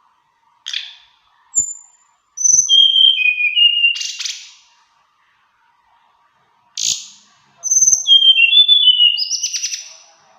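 A tledekan gunung songbird singing two varied, melodious phrases: each opens with a sharp call, runs through clear whistled notes that step down in pitch, and ends in a quick buzzy trill. A few faint low knocks come between the phrases.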